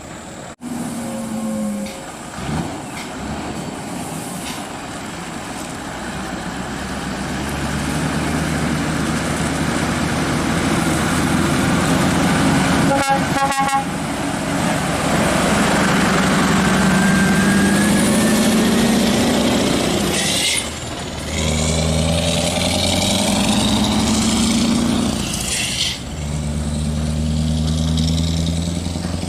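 Scania R580's V8 diesel engine running under load, its pitch rising for several seconds in the middle, with two brief dips in the later part. A horn sounds in a few short pulses about halfway through.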